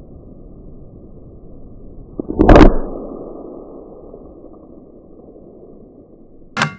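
A single shot from a suppressed Savage Mark II .22 LR bolt-action rifle firing subsonic hollowpoint rounds, about two and a half seconds in, fading away over the next few seconds. A short sharp sound follows near the end, over a steady low background noise.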